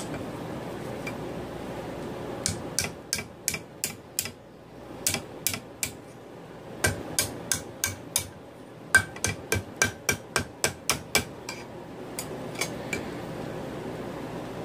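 Hand hammer striking red-hot 5/16-inch round steel bar on an anvil's horn to bend it: sharp ringing blows in bursts with short pauses between, the quickest run about four a second.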